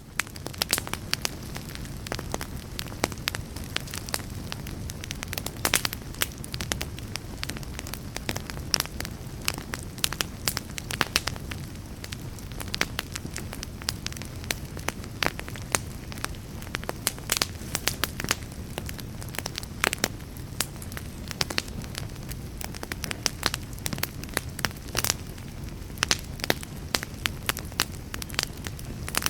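Fire burning in a fireplace: a steady low rumble of flame with frequent, irregular sharp crackles and pops.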